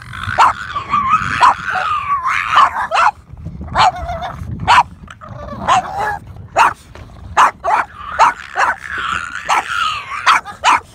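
Boston terriers barking in repeated sharp barks, mixed with long, wavering high-pitched whines and yelps.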